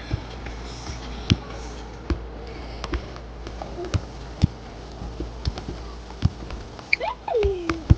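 Irregular taps and knocks, about one or two a second, over a steady low hum, with a brief voice-like sound sliding down in pitch near the end.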